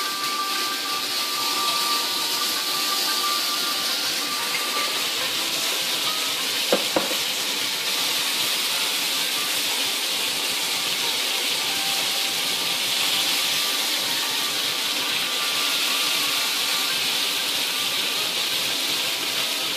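Grouse pieces frying in oil in a cast-iron skillet, a steady sizzle throughout. A single sharp knock about seven seconds in, like a utensil striking the pan.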